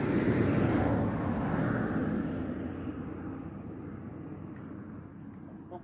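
A broad rumbling noise that is loudest in the first second or so and slowly fades away, over a steady high insect trill typical of crickets.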